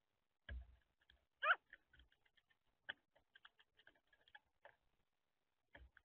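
Black-billed magpie working at in-shell peanuts on a tray feeder: a run of light clicks and taps of its bill on the shells and tray, with a soft thump about half a second in and another near the end. A short animal call with a wavering pitch, the loudest sound, comes about a second and a half in.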